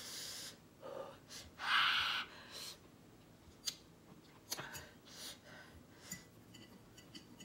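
Two loud hissing breaths in the first two seconds, a reaction to the burn of very spicy noodles, followed by small clicks of a metal fork against a glass bowl as she keeps eating.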